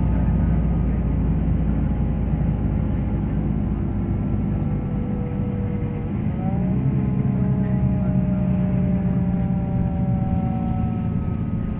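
Bus engine and drivetrain droning steadily with road noise, heard from inside the cabin while driving. Its pitch drifts slowly and shifts about six seconds in.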